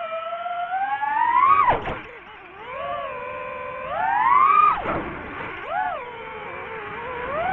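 DJI FPV drone's motors and propellers whining, the pitch following the throttle: it climbs steadily and then drops sharply, twice, about two and five seconds in, with a brief rise and fall near six seconds.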